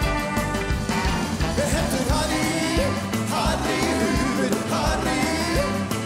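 Live rock-and-roll band playing, with electric guitars, bass and drums, and a voice singing over it from about two seconds in.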